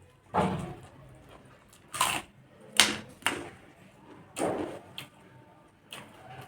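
Close-miked eating noises while noodles are being eaten: about six short, loud mouth sounds at irregular intervals of a second or so.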